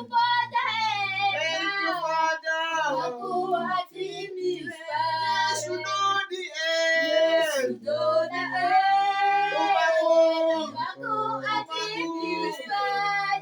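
A high-pitched solo voice singing a worship song to Jesus, with long held notes that bend and slide between pitches. A faint low sustained accompaniment comes and goes beneath it.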